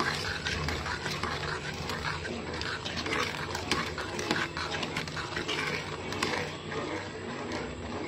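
A steel ladle stirring thick kheer (rice cooked down in milk) in a metal pot, mixing in freshly added sugar. It makes a continuous wet churning, with frequent light clicks of the ladle against the pot.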